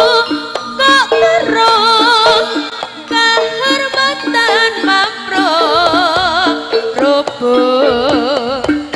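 Live East Javanese jaranan music accompanying a barongan dance. A wavering melody line with strong vibrato plays over steady, repeated pitched percussion notes.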